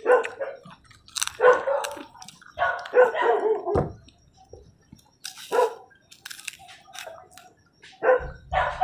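A dog barking repeatedly in short barks, in several bouts with pauses between them.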